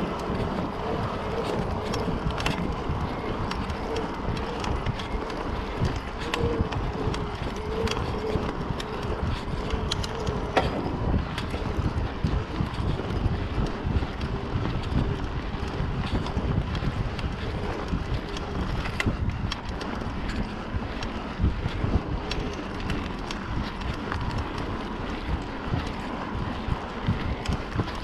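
Mountain bike ridden along a dirt woodland trail: wind buffeting the microphone over a low rumble of tyres on the dirt, with frequent small clicks and rattles from the bike over bumps.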